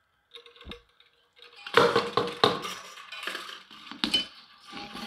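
Handling noise of the metal parts of a dismantled subwoofer being moved and set down on a wooden workbench: a run of clinks, knocks and clatter, loudest about two seconds in.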